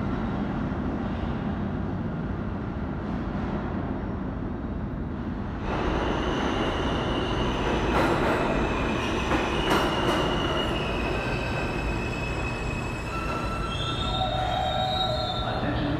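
R160 New York City subway train pulling into the station: a low rumble of the approaching train, then from about six seconds in a louder rush with high, steady squealing as it slows along the platform. There are two sharp clanks about eight and ten seconds in.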